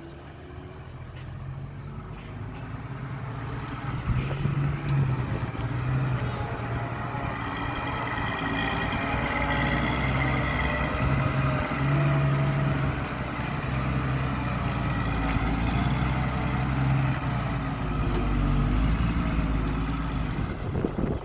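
Heavy diesel earthmoving machinery running under load, the engine's low drone growing louder over the first few seconds, then staying loud with a higher whine over it, before cutting off suddenly at the end.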